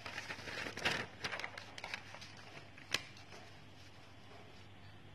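A sheet of paper turned over by hand, rustling and crackling for about two seconds, followed by a single sharp tap about three seconds in.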